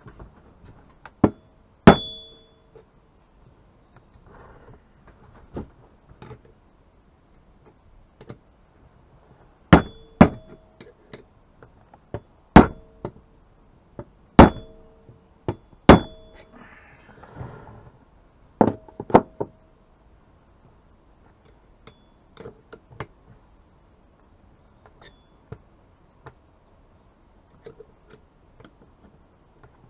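Hammer blows on a long steel shaft set in a two-stroke chainsaw engine: sharp metal-on-metal strikes, each with a short ring. Two come near the start and a run of about seven falls in the middle, with lighter taps and handling noise between.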